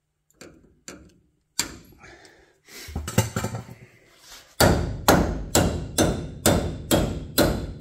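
Hammer striking the steel parts of a snow bus track bogie. First a few light clicks and clatter, then from about halfway a steady run of sharp, ringing blows, about two a second.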